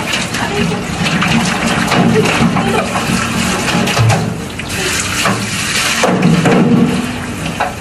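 Water running from a handheld shower hose and splashing into a concrete sink while a wet dog is being washed in it.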